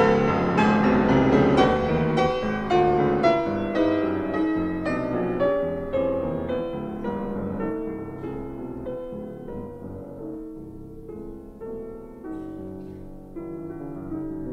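Background piano music, a steady run of notes growing gradually quieter.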